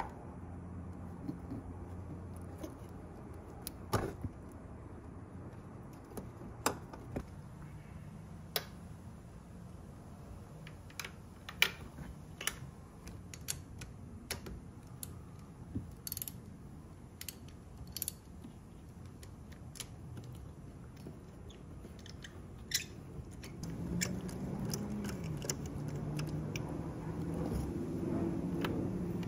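Scattered clicks and taps of hand tools on metal as a socket on an extension is seated and a ratchet is worked on a scooter's spark plug. A low steady hum comes up near the end.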